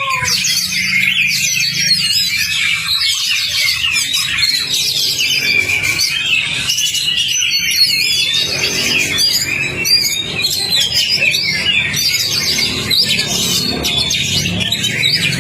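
Oriental magpie-robin (kacer) singing a fast, unbroken, varied song of chirps, whistles and trills, over a steady low hum.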